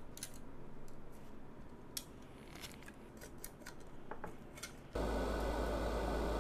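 Copper busbar strip and a metal-backed circuit board being handled and positioned, giving scattered light clicks and taps. About five seconds in, the sound switches abruptly to a louder steady hiss with a low hum.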